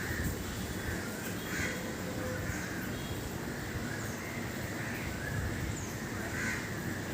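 Birds calling: short calls repeated about once a second, over a steady background hiss.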